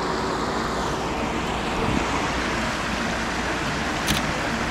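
Shallow river water rushing steadily over rapids. A short sharp click about four seconds in.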